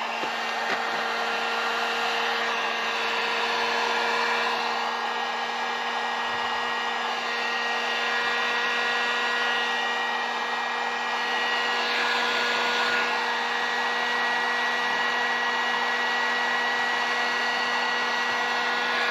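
Handheld hot-air blower, a heat gun, running steadily with a constant motor hum and airflow, as used to warm and soften vinyl while applying it.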